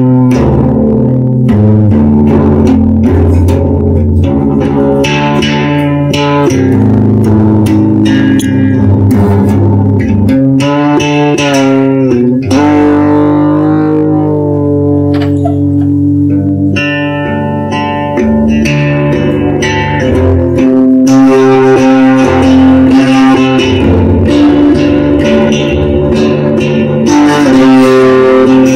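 Music: an original song recording led by guitar, with bass guitar underneath.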